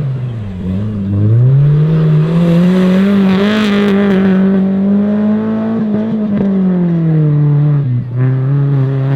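Off-road 4x4's engine revving hard under load. Its pitch climbs about a second in, holds high for several seconds, then drops back to a lower steady run near the end.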